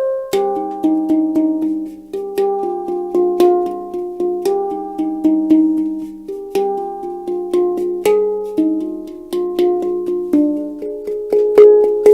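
Pandora Pantam handpan in a G/C harmonic minor tuning, played by hand in a free improvisation. Struck notes come a few per second, each ringing on, over a low note that keeps sounding.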